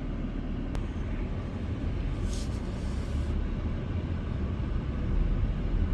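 Steady low rumble of a car driving along a road: tyre and engine noise.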